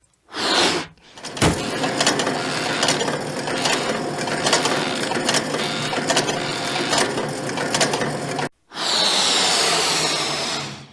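Makita HR2470 rotary hammer running in drill mode, its gearbox whirring with irregular clicking and no hammer blows: the hammer mechanism is not working. It stops about eight and a half seconds in, then runs again briefly.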